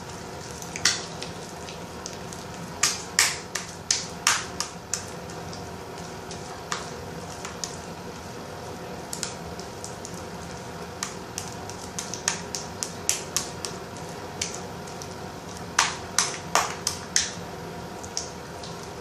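Sticky homemade glue-and-laundry-detergent slime being kneaded and squeezed by hand, giving off sharp irregular clicks and pops in bunches, busiest near the middle and again near the end, over a steady low hum.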